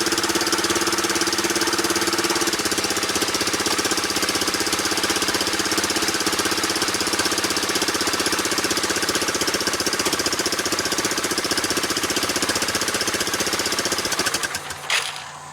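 Yamaha Moto-4 YFM225 ATV's single-cylinder four-stroke engine running steadily with a rapid, even beat during a rear brake test, then shutting off about fourteen seconds in; a single click follows near the end.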